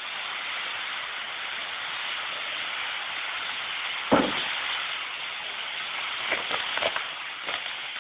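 Spinning fireworks wheels hissing steadily as they spray sparks. There is one sharp bang about halfway through and a few short cracks near the end.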